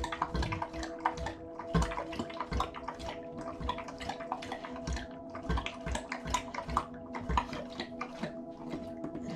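A Renascence Bulldogge lapping water from a stainless steel bowl, a quick steady run of laps and splashes.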